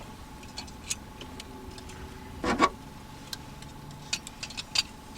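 Scattered light clicks and knocks of things being handled, with one louder knock about two and a half seconds in and a quick run of clicks near the end.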